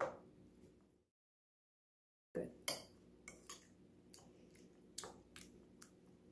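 Metal fork tapping and clinking against a ceramic bowl while mashing raspberries and blackberries, a run of irregular sharp taps over a low steady hum. The sound drops out completely for about a second near the start.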